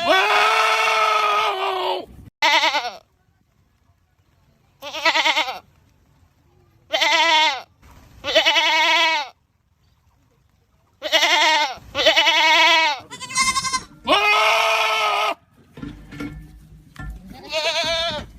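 Goats screaming: a run of about ten loud, harsh bleats with short silences between them, some brief and some held for a second or two, each dropping in pitch at its end.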